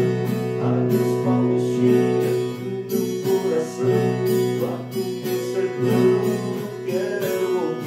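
Viola caipira, a ten-string Brazilian folk guitar, strummed with a thumbpick in a guarânia rhythm in three-four time, held on a B7 chord.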